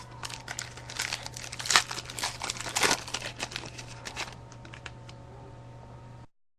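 Foil baseball-card pack wrapper crinkling and tearing as it is handled and opened by hand, a dense run of crackles that dies away after about four and a half seconds. A steady low hum runs underneath.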